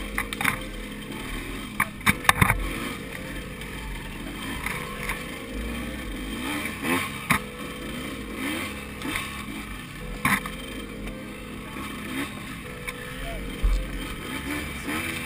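KTM 200 XC-W two-stroke dirt-bike engine revving up and down in short, repeated rises while being ridden, with several sharp knocks and clatters, the loudest about two seconds in.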